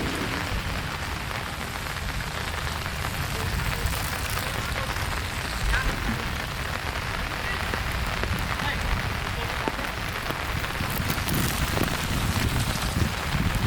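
Steady rain falling on a street: a dense, even hiss with scattered drop ticks and a low rumble underneath.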